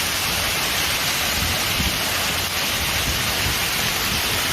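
Steady, dense rush of storm water, with no change in level throughout.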